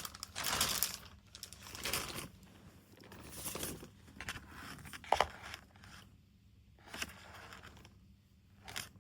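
Packaging being handled: a run of irregular rustling and crinkling noises, several short bursts a second or so apart, with a sharper crackle about five seconds in.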